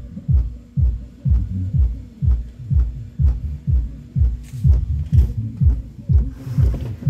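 Infinity BU-2 10-inch powered subwoofer playing a bass-heavy beat: deep thumps about twice a second, each dropping quickly in pitch.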